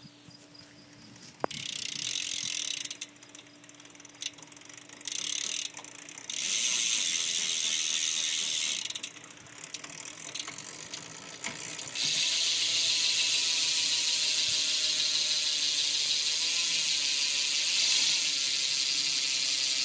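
Salt Plus BMX rear hub freewheeling, its pawls clicking so fast they make a high buzz. It comes in three short runs, then one long steady run from about twelve seconds in.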